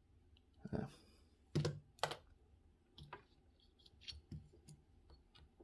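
Small metal clicks and knocks from handling a Best SFIC lock core and setting it into a metal gutting block to take it apart. A few sharp clicks come in the first two seconds, then lighter ticks.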